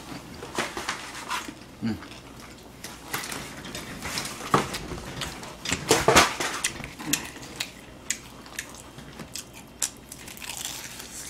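Close-miked crunching and chewing of crispy fried chicken drumsticks: a string of irregular sharp crunches from bites into the battered skin, loudest about four and six seconds in.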